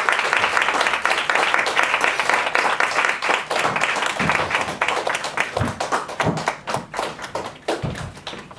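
Audience applauding at the close of a performance, the clapping thinning out and dying away over the last few seconds, with a few dull thumps as it fades.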